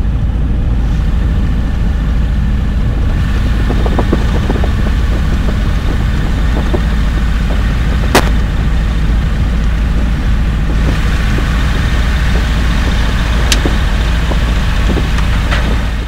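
Rotax 912 flat-four aircraft engine of a Sling 2 light-sport plane running steadily at low power while taxiing, a deep continuous rumble, with a couple of sharp clicks.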